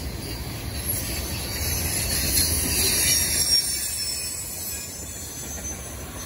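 Freight cars of a long mixed manifest train rolling past: a steady wheel-on-rail rumble with a high hissing squeal from the wheels, louder in the middle and easing toward the end.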